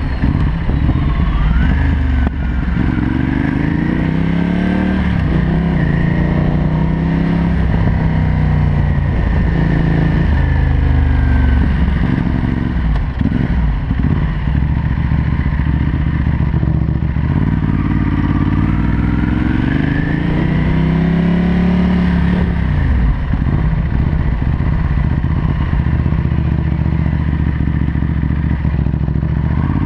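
2013 Ducati Hypermotard SP 821's L-twin engine through a Termignoni full race exhaust, heard from on the bike while riding. The engine note rises and falls several times as the bike accelerates and slows, with steadier cruising in between.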